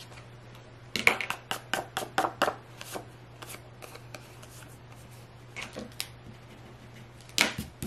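Pencil eraser rubbing out pencil marks on cardstock: a quick run of short back-and-forth strokes, about five a second, for roughly two seconds. A few more strokes come later, and a louder rub comes near the end.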